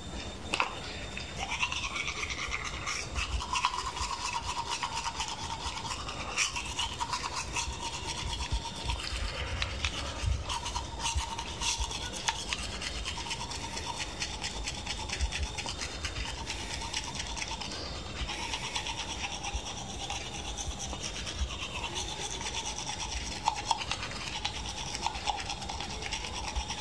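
Manual toothbrush scrubbing back and forth over teeth in quick, continuous strokes.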